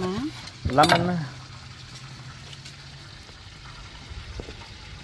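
A voice says "lemon" once, followed by a faint steady low hum for a couple of seconds and a quiet background with one light click.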